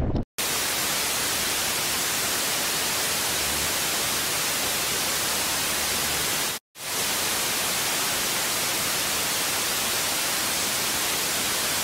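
Steady static hiss, like white noise, evenly loud throughout, cutting out to silence for a split second twice: about a third of a second in and again about six and a half seconds in.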